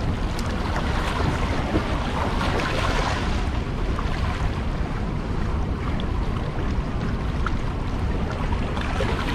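Rushing, churning water of a dam spillway outflow with the gates wide open, a steady roar, with wind buffeting the microphone.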